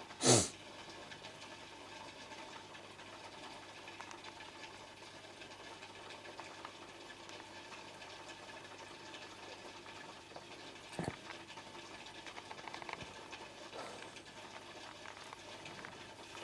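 Aquarium air bubbles and pump running: a steady bubbling hiss. A loud, brief burst of noise comes just after the start, and a short knock about eleven seconds in.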